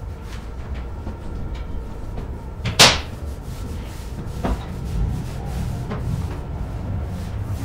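A single loud, sharp knock about three seconds in, over a low steady rumble, followed by a few fainter knocks.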